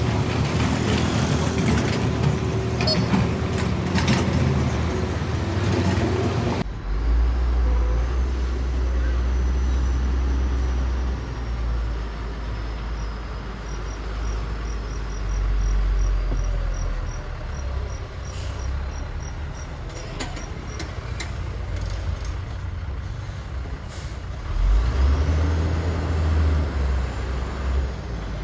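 Diesel engines of an excavator and dump truck running under load, a deep steady drone. About six and a half seconds in the sound changes abruptly to a deeper, smoother engine drone.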